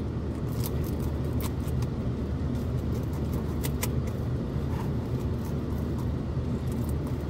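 Steady low rumble of a car idling, heard from inside the cabin, with scattered light clicks and taps as a hot calzone is cut up in its takeout container.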